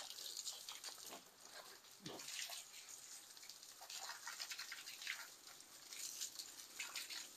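Water from a garden hose spraying onto a car and splashing on wet concrete: an irregular hiss of spray and splashes that swells and fades as the hose is moved.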